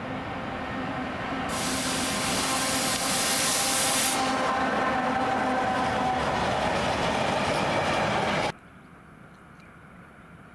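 Freight train of open wagons hauled by an electric locomotive rolling past at close range: a loud, steady rush of wheels on rail with a hiss and a few steady tones, swelling as the wagons come by. About eight and a half seconds in it cuts off abruptly, leaving a much quieter background.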